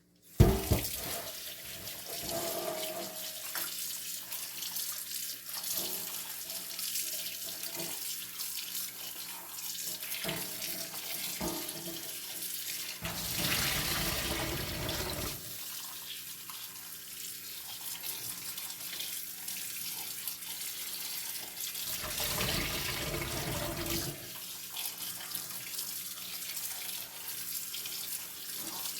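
Kitchen tap running into a sink, a steady rush of water, with two louder spells about halfway through and again a few seconds later.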